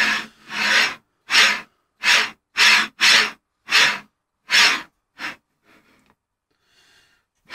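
Carriage on a Prusa i3 kit's linear bearings pushed back and forth by hand along two smooth steel rods: a rhythmic rasping swish on each stroke, about nine strokes at roughly one and a half a second, stopping about five seconds in. The bearings are running dry, fairly smoothly, though the builder thinks they may want some lubricant.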